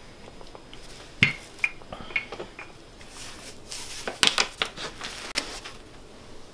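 Kitchen handling sounds as croissant dough is worked with a wooden rolling pin and then folded and lifted by hand. There are a few sharp knocks a little over a second in, then a stretch of rustling and soft knocks.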